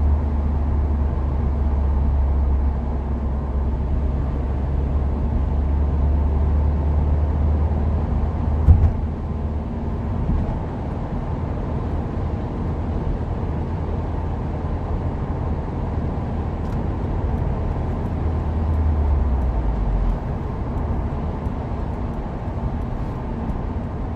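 2015 Subaru WRX with a turbocharged 2.0-litre flat-four, driving steadily: a strong low engine and road drone inside the car. A single thump comes about nine seconds in, and the low drone falls away a few seconds before the end.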